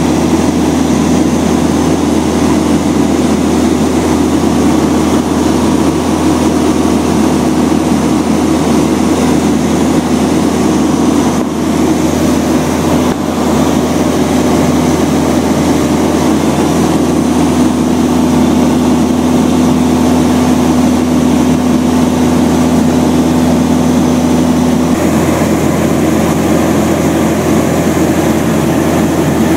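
Long-EZ's piston engine and pusher propeller droning steadily in flight, heard inside its cockpit; the tone changes slightly near the end.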